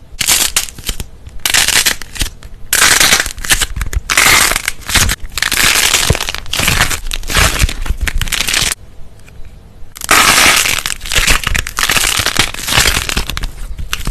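Loud crunching and crackling as something is crushed, in several runs: short bursts at first, a long stretch, a brief pause, then another long stretch.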